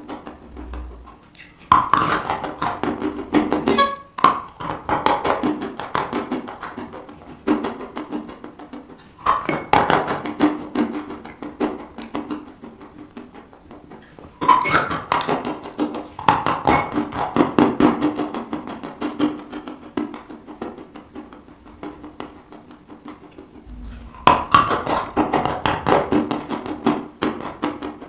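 Close-miked biting and chewing of a block of white chalk: four crisp bites, each followed by several seconds of dry crunching chews that fade out.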